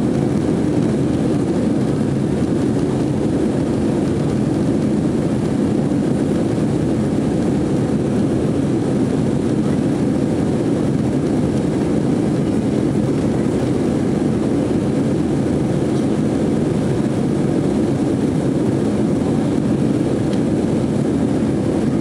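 Steady jet airliner cabin noise during the climb after takeoff: engine and rushing-air noise heard from inside the passenger cabin, even and unchanging.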